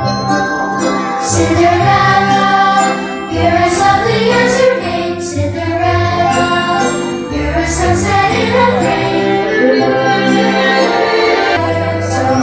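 Orchestral show music over loudspeakers, with bells and chimes and some singing.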